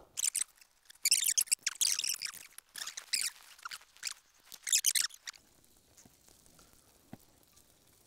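Soup being slurped from spoons: a run of short, irregular slurps through about the first five seconds, then quiet apart from one faint click about seven seconds in.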